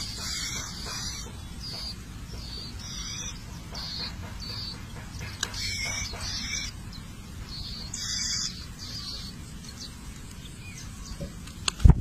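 Nestling songbirds chirping for food in bursts of high, thin calls every second or so, with louder bouts as the parents arrive to feed them. A sharp knock sounds just before the end.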